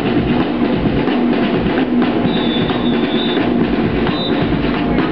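University marching band playing as it marches: brass holding a low note over busy, steady drumming.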